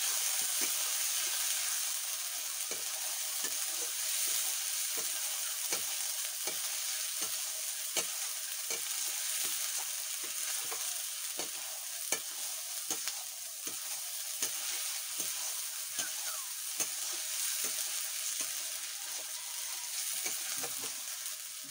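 Chicken curry frying in oil in a metal kadai, sizzling steadily, while a metal spatula stirs it, scraping and knocking against the pan about once or twice a second.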